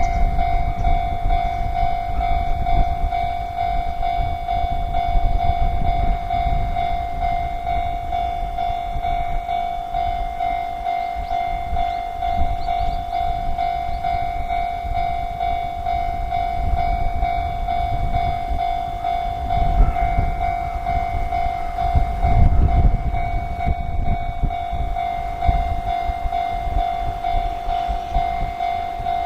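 Level-crossing warning bell sounding steadily on one high tone while a train passes, its low rumble rising and falling and loudest about two-thirds of the way through.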